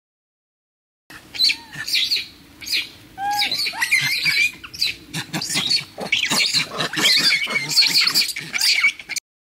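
Several monkeys screaming and squealing over one another in high calls that glide up and down, starting about a second in and cutting off abruptly near the end.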